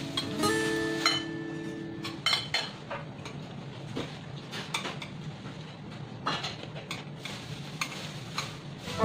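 Metal chopsticks and a metal spoon clicking and scraping against a glass salad bowl as salad is picked up, in irregular light clinks.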